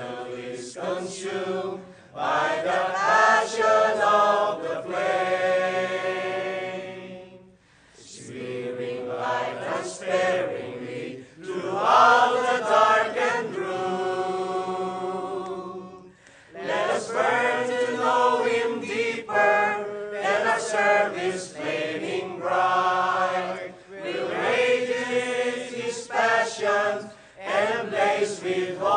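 Mixed choir of men's and women's voices singing a hymn, with short breaks between phrases about seven and a half and sixteen seconds in.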